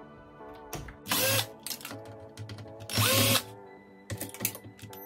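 Small power drill-driver whirring in two short bursts, about a second in and again about three seconds in. Each burst rises in pitch as the motor spins up, like a tool running screws in or out. Light clicks fall between the bursts.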